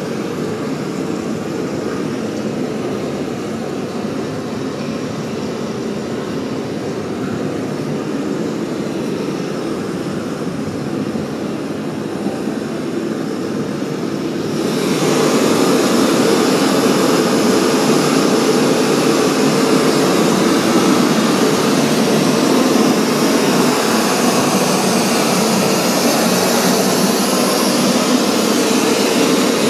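A steady, loud rushing noise with no distinct tones or beats. About halfway through it steps up suddenly, getting louder and brighter, and then holds steady.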